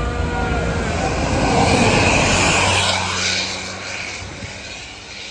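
A tour bus driving past close by: a rushing engine and road noise swells to its loudest about two seconds in, then fades away over a steady low engine hum. A held horn note cuts off in the first half second.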